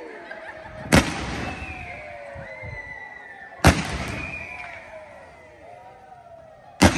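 Fireworks bursting in a display: three loud, sharp bangs, spaced about three seconds apart.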